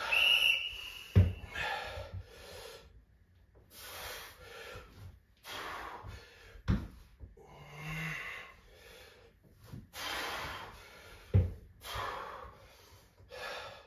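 A man breathing hard in repeated heavy exhalations while doing lunges, with three dull thumps of feet landing on a rubber floor mat. A short, steady high tone sounds right at the start.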